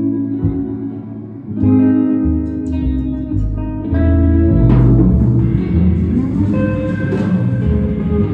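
Guitar music: plucked guitar notes ringing over low bass notes.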